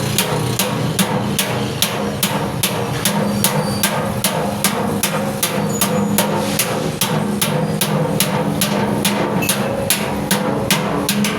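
Blacksmith's hammer striking metal on an anvil in a steady, even rhythm of about three blows a second, each with a short ring, over a low steady hum.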